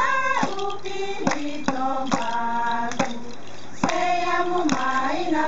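A group of women's voices singing a traditional Solomon Islands dance song together in held notes, over a sharp, steady beat struck a little over twice a second.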